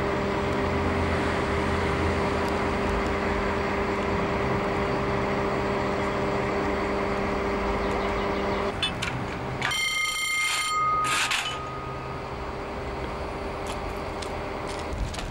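A steady engine drone with a low hum stops about nine seconds in. A second later an electric ringing tone sounds for about a second and a half.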